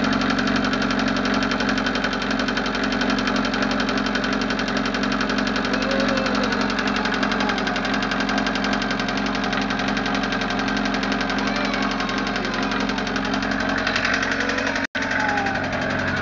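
Westerbeke Four 60 15 hp marine diesel engine running steadily with a fast rhythmic tapping, the tapping that the owner is investigating.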